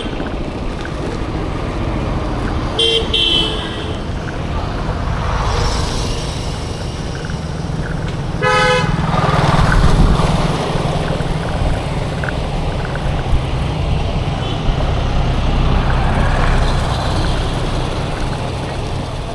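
Road traffic passing a bicycle on a village road: a steady low rumble of engines and tyres that swells as vehicles go by. Two short vehicle horn toots sound, about three seconds in and again about eight and a half seconds in.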